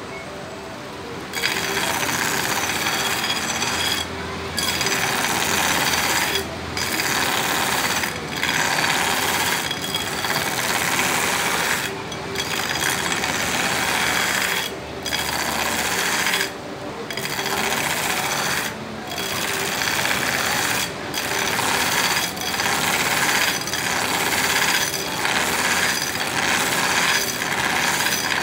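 Belt grinder running, with a steel knife blade pressed against the abrasive belt in repeated passes, grinding a distal taper into the blade. The grinding hiss starts about a second in and breaks off briefly between passes, over the steady hum of the motor.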